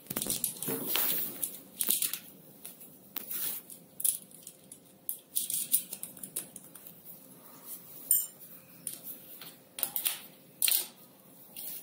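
Scattered, irregular light metallic clicks and clinks from an e-bike's front wheel being fitted into the fork by hand, with the axle nuts being turned on.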